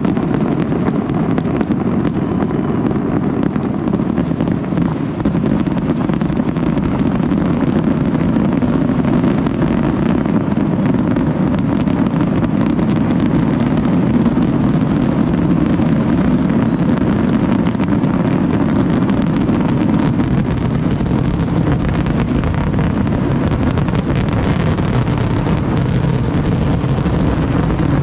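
Distant New Year's fireworks barrage: many bangs running together into a loud, steady, unbroken rumble.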